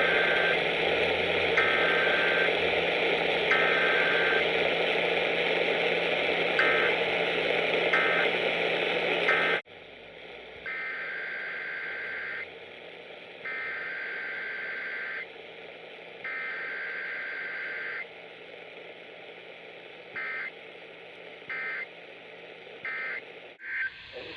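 Emergency Alert System SAME data bursts, the screechy digital tones of a required weekly test, heard twice over radio reception. Each test is three longer header bursts about a second apart, then three short end-of-message bursts. The first test sits under heavy radio static; about ten seconds in it cuts to a cleaner reception with longer header bursts.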